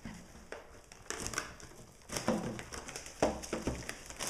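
Packaging of a Pokémon card collection box being handled and broken open, crinkling and crackling irregularly with a few sharper clicks.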